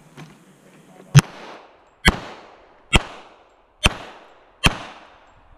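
Five pistol shots from a Sig Sauer 1911 MAX in .45 ACP, fired one-handed (strong hand only) at a steady pace a little under a second apart, each followed by a short echo.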